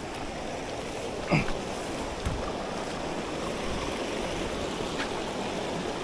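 Steady rush of creek water running over rocks. About a second in there is one brief sound that falls in pitch, and there are a couple of faint clicks.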